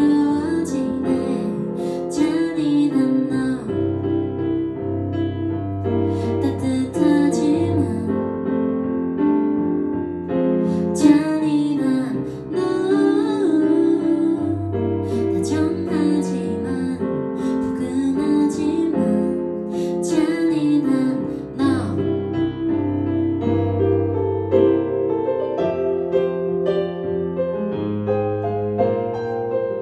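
A woman singing to her own Kurzweil digital piano accompaniment. About three quarters of the way through the singing stops and the piano plays on alone.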